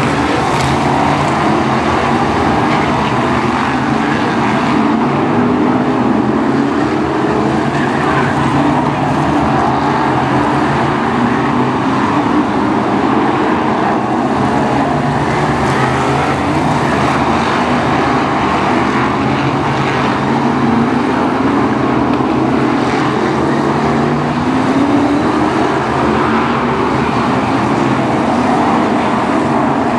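A pack of BriSCA F1 stock cars with V8 engines running loud and continuous around the track. The engine notes rise several times as cars accelerate.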